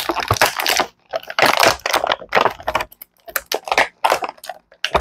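Clear plastic packaging bag crinkling and rustling in irregular bursts as hands work an action figure out of it, close to a clip-on microphone.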